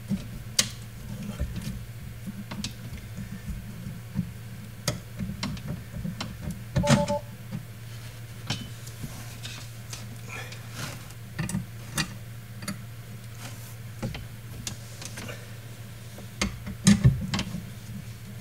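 Irregular clicks, taps and rattles of a hand fitting a ground cable and its wiring to the car body in a trunk, loudest about seven seconds in and again near the end, over a steady low hum.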